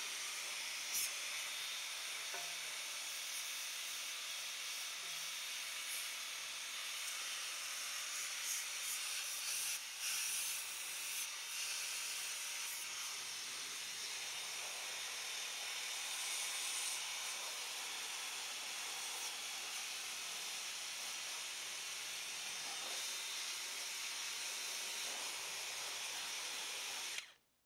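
WORX Hydroshot 40-volt cordless pressure washer spraying a jet of water onto grimy metal and hydraulic hoses: a steady hiss that stops abruptly near the end.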